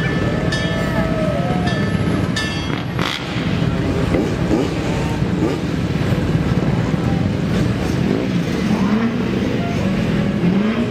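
Vintage fire engine's engine running with a steady low rumble as the truck rolls slowly past. A few short ringing tones sound in the first three seconds.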